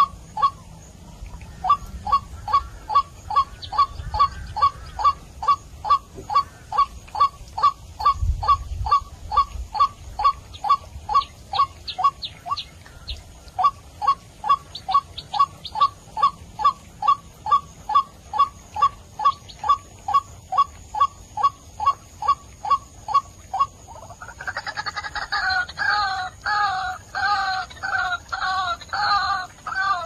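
White-breasted waterhen lure recording: a short call note repeated monotonously about twice a second, with a brief break near the middle. Near the end it switches to a harsher, fuller double-noted call repeated a little more slowly.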